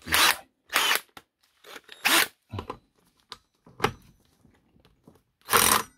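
Cordless impact wrench on the centre nut of a scooter's CVT front drive pulley, run in about six short bursts with pauses between them.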